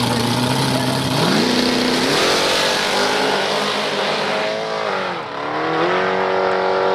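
Drag car launching off the starting line and accelerating hard down the strip, its engine pitch climbing in steps. Pitch and level dip briefly about five seconds in, then climb again.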